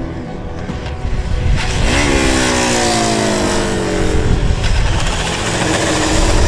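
KTM adventure motorcycle's engine under hard braking and aggressive downshifting. About two seconds in, the revs jump up with the downshift and then fall steadily as engine braking slows the bike, over a hiss of tyre and wind noise.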